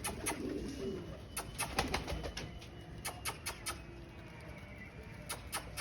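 Domestic pigeons cooing, a low murmur mostly in the first second, with many sharp clicks and taps scattered throughout.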